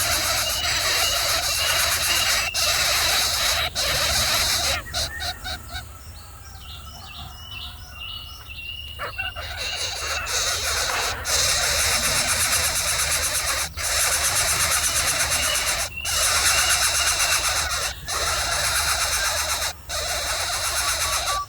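A bird calling in three runs of short, rapidly repeated high notes, over a steady loud hiss.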